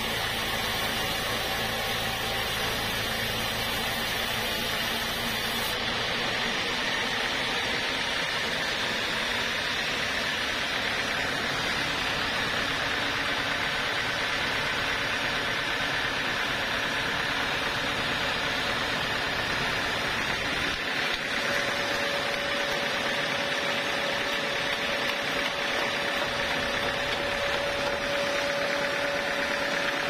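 Band sawmill running steadily, its blade sawing through a thick slab of Javanese red hardwood. A steady whine joins about two-thirds of the way through.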